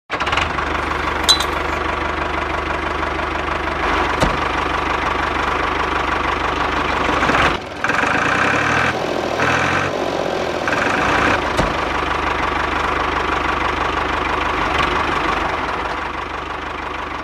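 Small electric motor of a DIY model tractor drilling rig running steadily, with a brief drop-out about halfway through.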